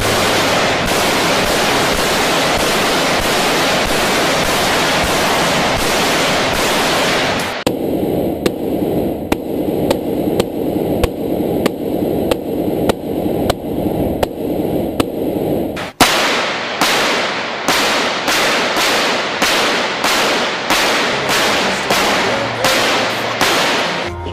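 Gunfire, as in a ballistic test of an armored car: about seven seconds of continuous automatic fire, then a steady run of single shots about two a second. About two-thirds through, the shots switch abruptly to a louder, sharper set at a similar pace.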